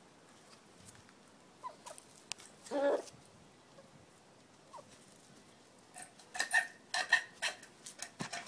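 Chickens clucking: one short cluck about three seconds in, then a run of quick, sharp clucks and clicks in the second half.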